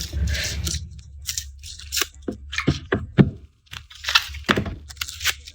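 Papery garlic skins being peeled off the cloves, close up: a rustle, then a quick run of crisp crackles and tearing snaps.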